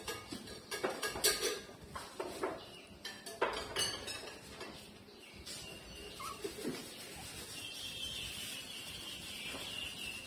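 Puppies suckling at their mother's teats, giving quick wet smacking clicks. From about halfway there is a thin, high whine that is held for several seconds.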